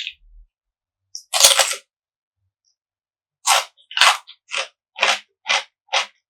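Close-miked crunchy eating: a loud crunching bite about a second and a half in, then steady chewing crunches about twice a second from about three and a half seconds on.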